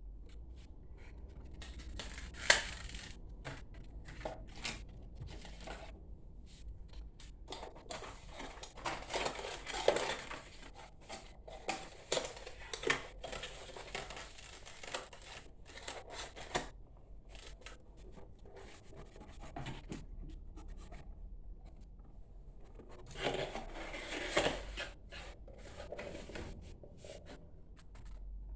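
Hands handling computer parts and cables: irregular clicks, scrapes and rustling. A sharp click comes about two and a half seconds in, with busier handling in the middle and again near the end.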